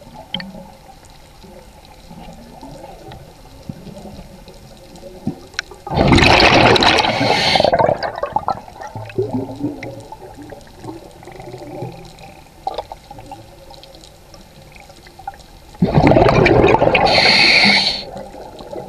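Scuba diver's exhaled bubbles rushing from the regulator twice, about ten seconds apart, each rush lasting about two seconds. Between breaths there is a faint underwater crackle of small clicks.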